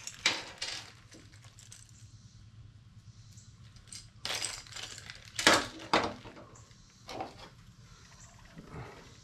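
Irregular clicks, clinks and knocks of small hard parts being handled as a replacement handle is fitted onto a trolling motor's pull cable, with the loudest knock a little past the middle.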